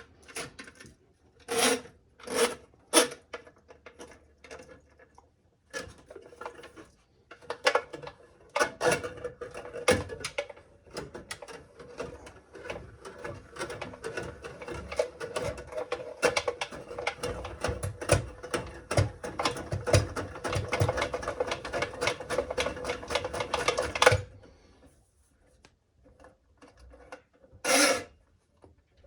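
Steel cable of a drain snake scraping and rattling in its drum and the drain pipe as it is worked through a clog: a few short scrapes at first, then a long stretch of dense grinding and clicking that stops abruptly, and one more scrape near the end.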